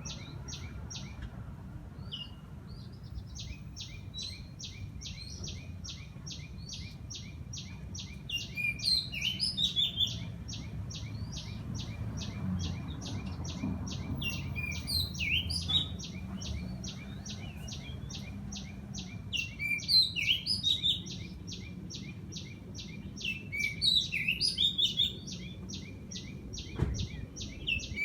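Several birds chirping and calling in bursts over a rapid high pulsing that repeats about four times a second. A steady low background rumble runs beneath.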